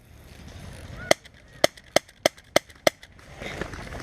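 Airsoft gun firing six sharp single shots in quick, uneven succession between about one and three seconds in. A noisy rustle rises near the end.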